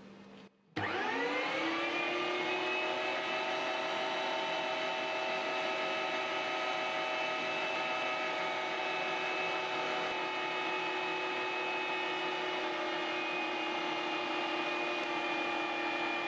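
Electric meat grinder switched on about a second in, its motor spinning up with a quick rising whine and then running steadily as it pushes seasoned pork through the stuffing tube into a sausage casing.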